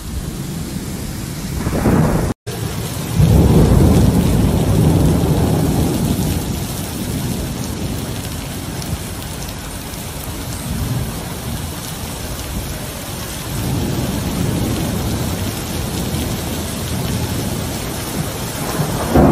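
Torrential rain pouring down in a thunderstorm, with a heavy rumble of thunder swelling about three seconds in and fading over the next few seconds. The sound drops out for an instant a couple of seconds in.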